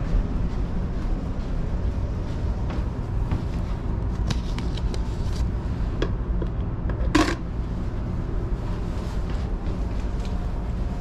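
A plastic card key dropped into a card key return box gives one sharp clatter about seven seconds in, after a few light clicks. Under it runs a steady low rumble.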